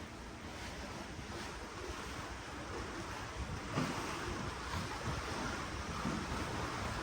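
Ocean water rushing and washing below a cruise ship, with wind buffeting the microphone in low gusts. The rush grows a little louder about four seconds in.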